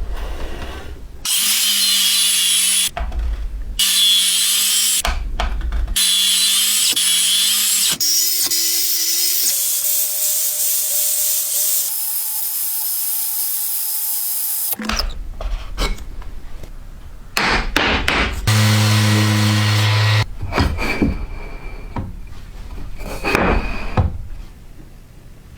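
Power tools running and cutting in short, abruptly cut bursts, with a motor whine stepping up in pitch in the middle.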